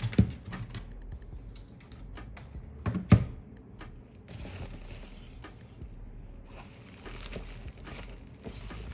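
A handbag being handled and rummaged through: crinkly rustling, with two sharp knocks, one near the start and a louder one about three seconds in.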